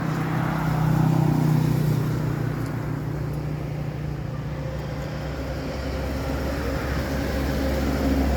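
Engine noise from passing motor traffic: a steady low engine hum that gives way to a deeper one about five seconds in.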